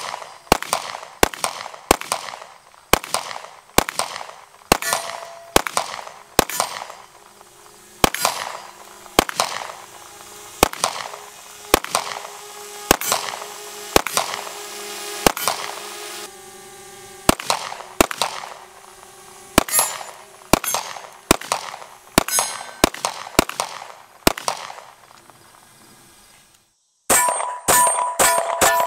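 Live Free Armory AMP 9mm pistol firing shot after shot, about one a second, each shot followed by a metallic clang and ringing. After a brief pause near the end comes a fast string of shots.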